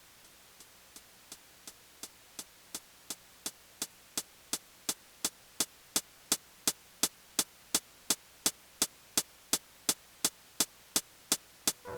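Roland TR-6S drum machine playing a steady run of short, bright ticks, about three a second, fading in from silence and growing louder over the first half.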